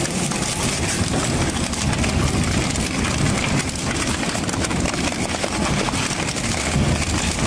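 Industrial shaft shredder running under load as it chews up a motorcycle: a steady, dense grinding din of the machine with crackling and crunching of metal and rubber being torn.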